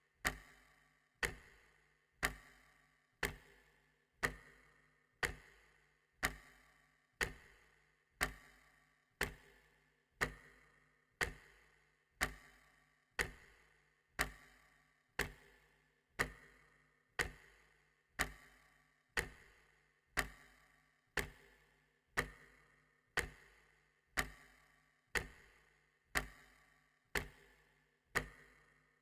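A clock ticking steadily, about one sharp tick a second.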